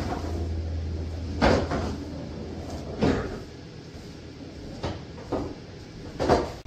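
Pool balls on a bar-box pool table. A low rumble, typical of a pocketed ball rolling through the table's ball-return channel, ends in a clunk about one and a half seconds in, followed by several scattered knocks.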